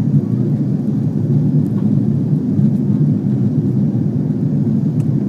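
Steady low rumble inside an Airbus A330's passenger cabin in flight: engine and airflow noise heard from a window seat.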